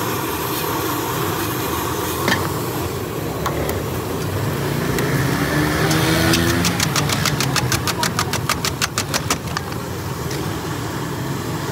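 A small engine revving up and running over steady background noise, with a rapid run of clicks, about five a second, near the middle.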